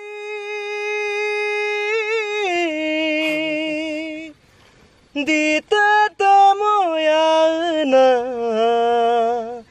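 A single voice singing a Mishing folk song unaccompanied. Long held notes open it, stepping down in pitch after about two and a half seconds. After a short break about four seconds in come shorter phrases that slide between notes, ending on a long low note.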